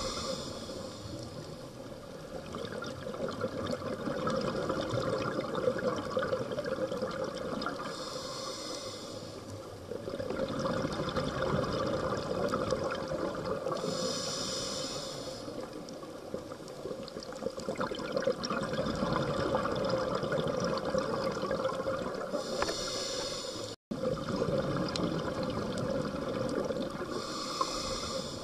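A scuba diver breathing through a regulator underwater: a short hiss of inhalation about every five to nine seconds, each followed by several seconds of rushing, bubbling exhalation. The sound cuts out for a moment a few seconds before the end.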